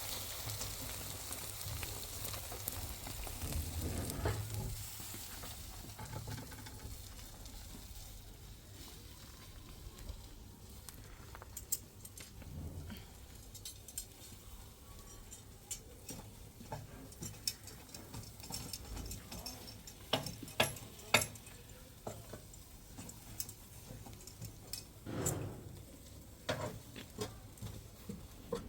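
Kitchen sounds: a soft sizzling hiss with scattered light clicks and knocks.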